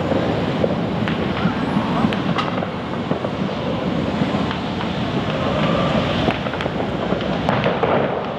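Fireworks going off in an irregular stream of sharp pops and cracks over a steady, dense rumble of noise.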